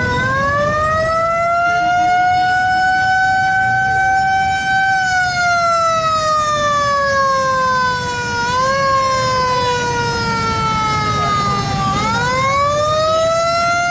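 Siren wailing slowly over a low background rumble: its pitch climbs over the first few seconds, holds, sinks gradually, and starts climbing again near the end.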